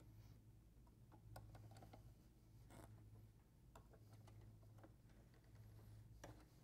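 Near silence: a faint steady low hum, with a few faint, irregularly spaced clicks and rustles from quilt fabric being handled and slid across the machine bed.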